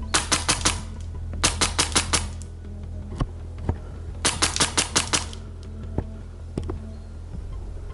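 Three bursts of rapid full-auto airsoft gunfire, about ten shots a second, with a few single shots between them, over background music.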